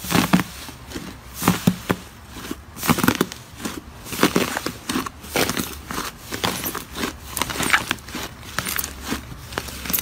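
Hands pressing, squeezing and tearing apart a thick, fluffy slime, giving irregular crackles and squishes several times a second.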